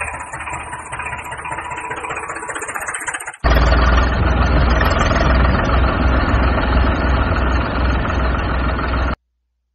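Tractor engine running at idle, with a low chugging knock. It is quieter for the first three seconds, then much louder and heavier, and it cuts off suddenly about nine seconds in.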